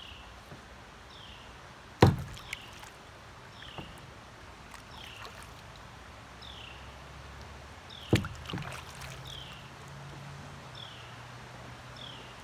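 Kayak paddle knocking against a plastic kayak hull, twice: a loud knock about two seconds in and another about eight seconds in. Low steady creek-water background, with a short high falling chirp repeating about once a second.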